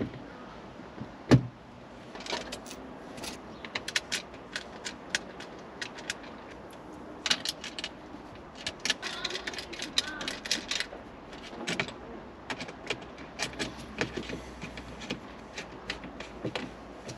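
Small metal clicks and rattles of an Allen key working the nuts and washers that hold a wind deflector to a car's roll bar, coming in irregular bunches, with one louder thump about a second in.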